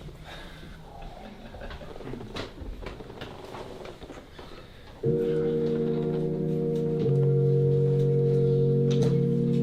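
Scattered soft knocks and clicks over room quiet, then about five seconds in an organ-like chord starts suddenly and loudly, held steady and changing to new chords about every two seconds: the opening of a song in the background music.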